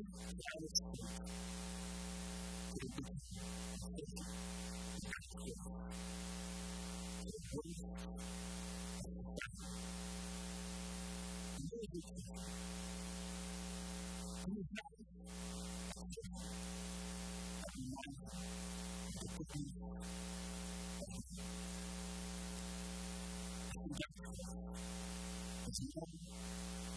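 Steady electrical mains hum with hiss, dropping out briefly every second or two.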